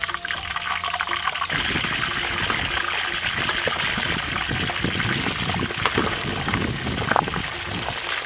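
Pork trotters deep-frying in a large wok of hot oil: a loud, dense sizzle and bubbling that swells about a second and a half in as the pieces settle into the oil, then holds steady.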